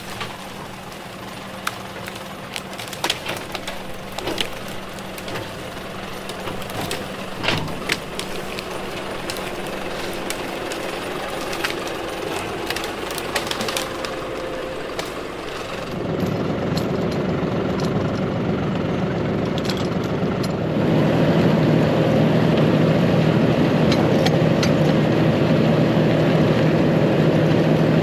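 An engine running steadily, with scattered sharp knocks and cracks over it. About halfway through the sound changes abruptly to a louder engine, which gets louder again around three quarters of the way through and then holds steady.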